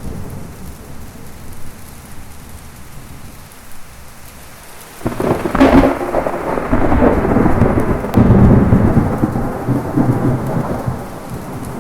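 Steady heavy rain with a clap of thunder breaking in about five seconds in, followed by a long low rolling rumble that swells again a few seconds later and slowly fades.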